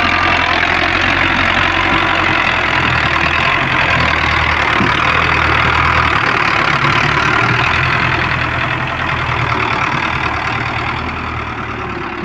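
A farm tractor's engine running steadily as the tractor pulls a heavily loaded sugarcane trolley past at close range. It grows fainter over the last couple of seconds as the tractor moves off.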